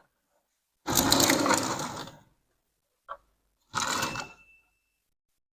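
Two bursts of clattering handling noise, the first about a second and a half long and the second under a second, with a single sharp click between them and a faint thin high tone lingering briefly after the second.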